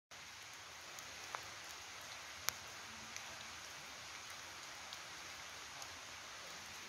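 Steady rain hiss with scattered single drops landing, the sharpest about two and a half seconds in.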